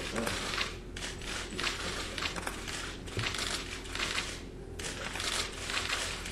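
Many press camera shutters firing in quick, irregular bursts of clicking.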